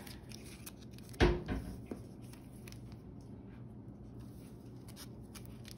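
Sleeved trading cards being handled and flipped through in the hands: faint clicks and rustles of the plastic sleeves, with one short louder knock about a second in.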